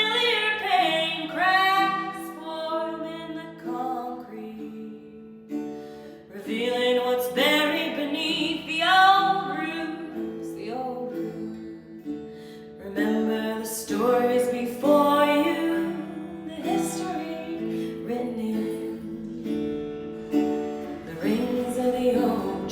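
A woman singing a melody, accompanied by an acoustic guitar.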